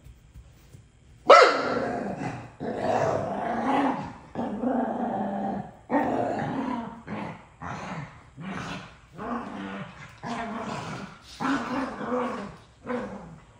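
Dogs growling at each other in a tussle over a toy, opening with a sudden loud bark about a second in, followed by a long run of short, rough growls that stop just before the end.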